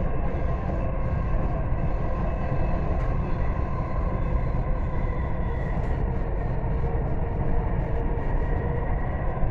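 Dubai Metro train running at speed, heard from inside the passenger car: a steady low rumble of wheels on rail with a faint steady whine over it.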